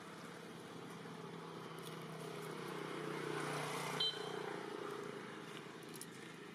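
A motor vehicle passing by: its engine hum swells to a peak a little before the middle and then fades away. A short, high squeak cuts in at the loudest point, about four seconds in.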